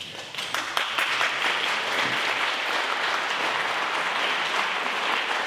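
Audience applauding, the clapping swelling in within the first second and then holding steady.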